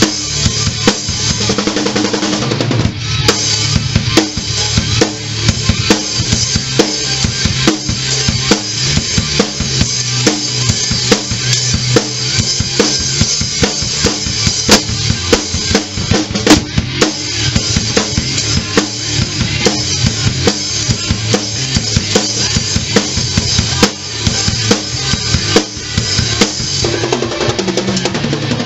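Rock drum kit played hard and fast: bass drum, snare and cymbal hits in a steady driving beat, played along with a recorded hard rock song whose guitars and bass sound underneath.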